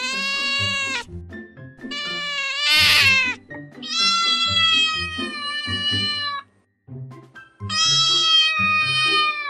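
A domestic cat gives long, drawn-out meows, four in a row. The second, about two to three seconds in, rises in pitch and is the loudest. Background music plays under the meows.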